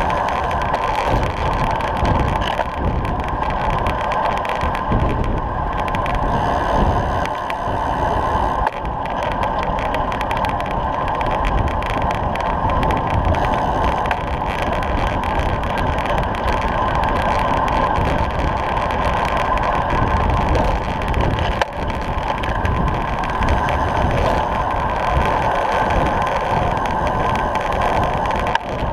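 Steady rush of wind and tyre noise from a road bicycle ridden at racing speed, about 20 to 25 mph, heard from a camera mounted on the bike, with wind buffeting the microphone.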